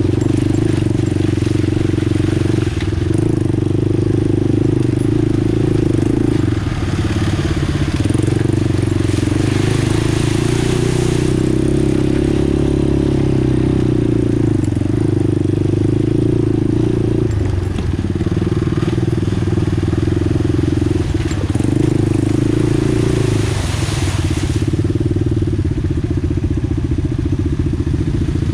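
ATV engine running under way, steady and loud, its pitch dipping briefly several times as the throttle changes.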